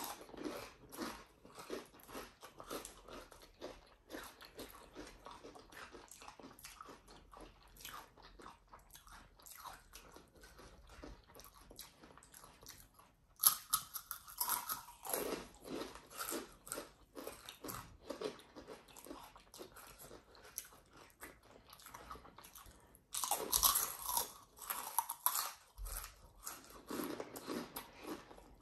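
Close-miked mukbang eating: chewing and crisp crunching of Takis rolled tortilla chips, with spicy instant noodles. Two louder bouts of crunching come as fresh chips are bitten, about halfway through and again near the end.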